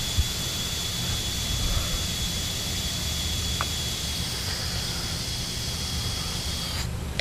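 Air hissing steadily through the hose at the brass air valve of a reverse osmosis storage tank, with a faint steady whistle; it stops about seven seconds in.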